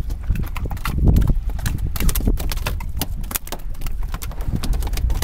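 Rapid, irregular knocks and slaps of freshly caught barracuda thrashing against the boat, over a low rumble.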